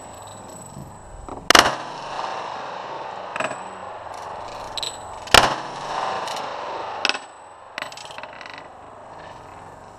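.45-calibre Glock pistol fired twice, about four seconds apart. Each shot is a sharp crack with a brief echo after it, and several quieter sharp cracks and clinks fall in between.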